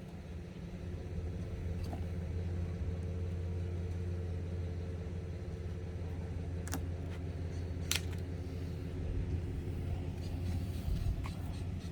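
A car engine idling steadily, a low even hum. Two sharp clicks about a second apart come past the middle.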